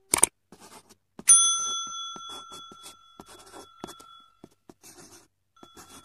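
A single bright metallic ding rings out about a second in and dies away over roughly three seconds, and the same tone sounds again faintly near the end. Light clicks and rustling of handling run through it.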